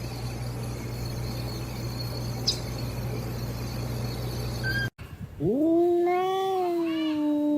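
Steady low hum and hiss, then, after a cut about five seconds in, a cat's long drawn-out yowl that rises in pitch at the start and is then held.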